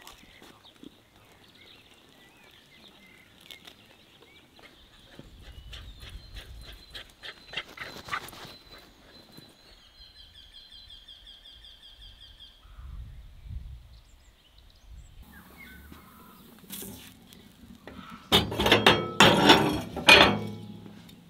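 Enamel kettle being shifted on a cast-iron wood-stove top: about two seconds of loud clattering and scraping near the end. Before it there are only faint ticks and a short high trill about halfway through.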